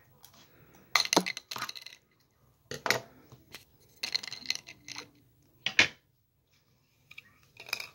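Small hard plastic Lego pieces clattering and clinking in several short bursts as a hand rummages through loose pieces on the table.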